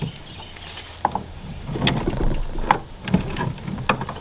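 Clunks and scraping as a small outboard motor's clamp bracket is set down and shifted on a jon boat's transom, with a few sharp knocks spread through.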